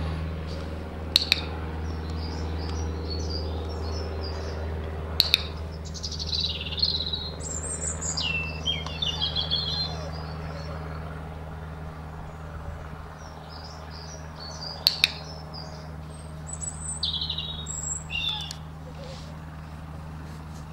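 Garden songbirds chirping and trilling, over a steady low hum. Three times, a sharp double click cuts through, about a second in, about five seconds in and near fifteen seconds.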